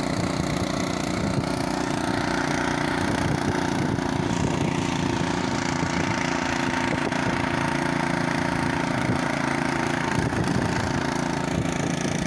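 The small engine of the vehicle being ridden, running steadily at an even speed.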